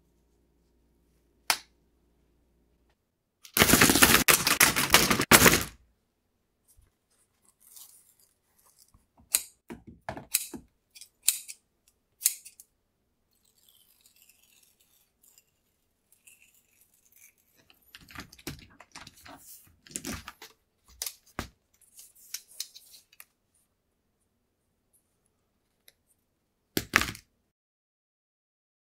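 Handling sounds of small workshop work on carbon-fiber door sills and their adhesive tape: scattered clicks and taps, a loud burst of noise lasting about two seconds early in the stretch, a stretch of light rustling with taps in the middle, and a short knock near the end.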